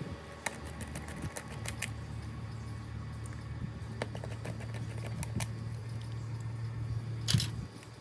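Scattered small clicks and taps of tools and phone parts being handled during a smartphone screen repair, with a louder click near the end, over a steady low hum.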